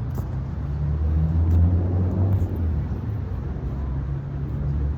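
Low engine rumble of a motor vehicle, growing louder about a second and a half in and then easing off.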